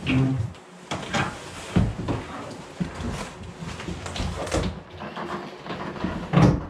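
Cardboard packaging scraping, rustling and bumping as a Mercedes C-class convertible door panel is lifted out of its large shipping box, with irregular knocks throughout and heavier thumps at the start and near the end.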